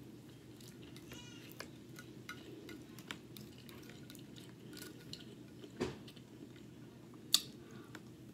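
Close-miked eating sounds: soft chewing and small wet mouth clicks over a mouthful of white rice, with a white plastic fork scraping and tapping the plate. A louder knock comes about six seconds in, and a sharp click shortly after.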